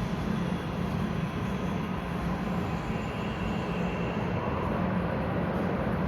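Steady machine noise: a constant low rumble with hiss over it, no distinct knocks or changes.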